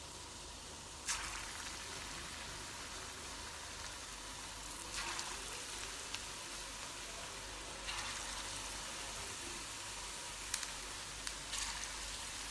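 Methi pakoda batter sizzling as it deep-fries in hot oil, a steady hiss that surges four times as more dollops of batter are dropped in, with a few small clicks near the end.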